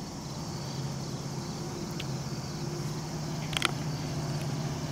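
Distant diesel locomotive engine drone as a train approaches, a steady low hum that slowly grows louder, with a couple of faint clicks in the middle.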